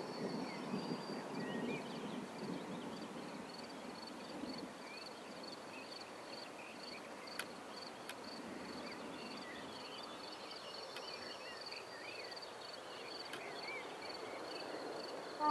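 Outdoor evening ambience: crickets trilling steadily, with scattered short bird chirps. A low noise in the first few seconds fades out, and there are two faint clicks near the middle.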